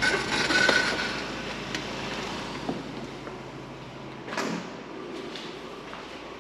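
A sliding door or screen being slid open, with a brief squeak in the first second, then a single knock about four and a half seconds in.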